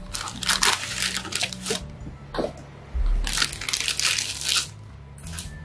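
Packaging crinkling and rustling in several bursts as a plastic-wrapped mini chopper is pulled from its cardboard box and handled in its clear plastic bag, with a low bump about three seconds in.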